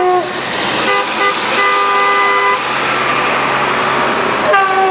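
Plastic stadium horn (vuvuzela-type) blown in long held blasts. One blast ends just after the start, another sounds from about one to two and a half seconds in, and a third begins near the end, over steady street and crowd noise.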